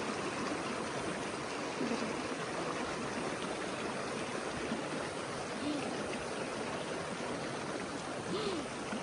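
Shallow spring-fed stream running steadily over rock, a constant even wash of flowing water.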